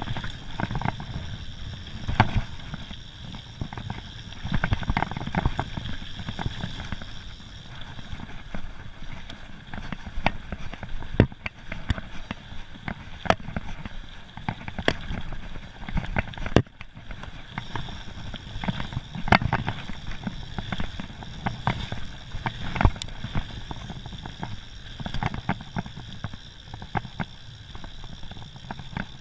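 Mountain bike ridden fast down a dirt forest trail, heard from a camera on the rider: a steady rumble of tyres and wind with frequent irregular knocks and rattles as the bike hits bumps.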